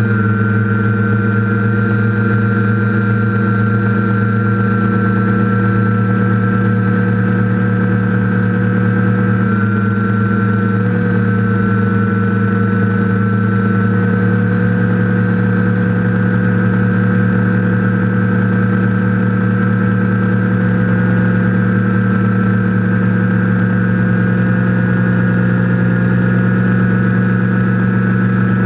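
TBS Discovery quadcopter's brushless motors and propellers buzzing steadily in flight, heard from the GoPro on the frame, with the pitch drifting a little up and down with throttle.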